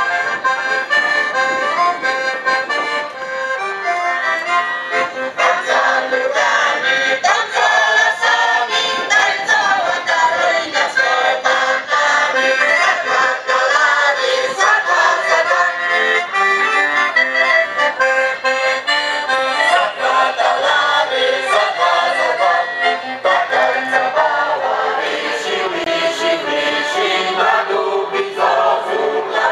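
Piano accordion playing a folk dance tune, with a mixed folk choir joining in singing near the end.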